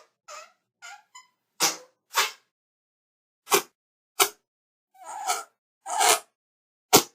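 Whoopee cushion being squeezed out in a string of short fart sounds, about ten separate ones with pauses between. Most are brief; a slightly longer, rougher one comes about five seconds in.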